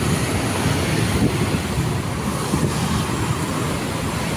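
Road traffic: motorbikes and cars passing close by on a city street, a steady mixed rumble of engines and tyres.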